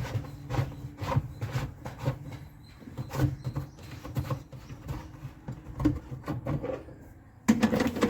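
Hands working on a dishwasher's plastic parts: irregular clicks, knocks and rubbing, with a louder burst of scraping near the end over a low steady hum.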